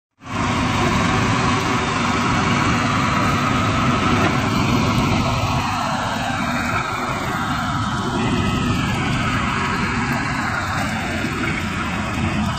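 Steady din of heavy diesel engines: a backhoe loader working and a tractor with a hitched clay mixer running. It cuts in abruptly at the start and holds at an even level.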